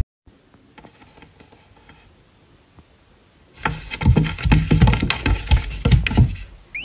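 A cat swatting and scrambling on a wooden wardrobe shelf: after a few seconds of quiet room tone, about three seconds of rapid, irregular thumps and knocks against the wood.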